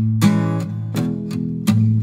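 Background music: an acoustic guitar strumming chords, with a fresh strum a little under once a second.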